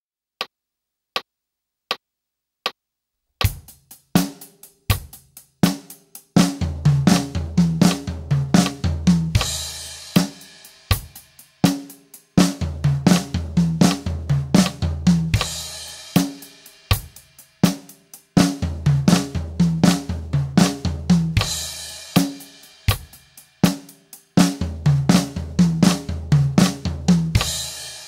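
Drum kit playing the Swiss Army triplet rudiment, flam-tap-tap triplet figures, after four evenly spaced count-in clicks. The drumming is fast and continuous over bass drum, with a cymbal crash closing each phrase about every six seconds.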